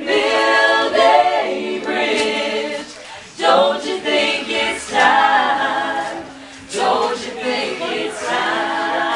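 Several voices singing together without instruments, in sung phrases with short breaths about three and six and a half seconds in.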